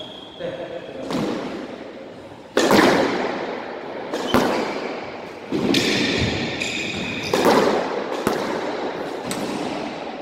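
Squash rally: rackets hitting the ball and the ball smacking off the court walls, sharp echoing hits about once a second, with shoes squeaking on the court floor around the middle.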